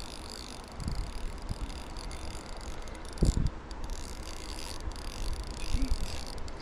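Wind rumbling on the microphone, with a brief low thump about three seconds in.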